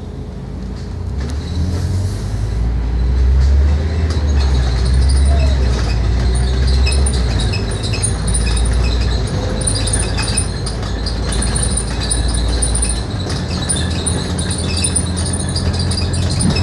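Scania K310UD double-decker bus engine heard from inside the bus, with a low drone that builds over the first few seconds as the bus picks up speed and eases somewhat near the end. A light, high jingling rattle from the bus's fittings runs over it.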